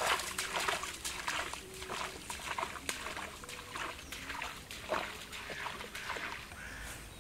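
Footsteps swishing through wet grass and shallow puddles, with small splashes, a step about every half second, fading as the walker moves away.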